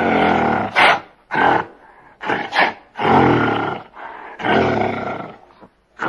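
Gorilla giving a run of deep, roar-like calls, about six in all, each under a second long with short gaps between them.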